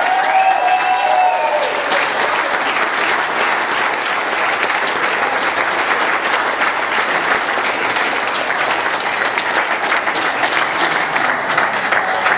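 A group of onlookers clapping steadily, with a few voices calling out and cheering in the first second or two.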